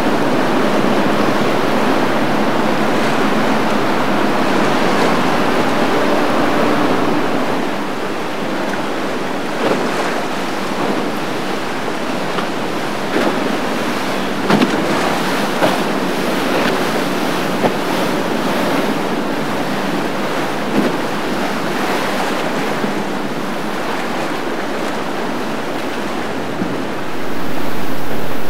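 Rushing, churning water of a fast canal current and boat wakes, with wind buffeting the microphone. A passing outboard motor hums faintly under it for the first several seconds. A few sharp slaps and knocks come in the middle, and the water noise grows louder near the end.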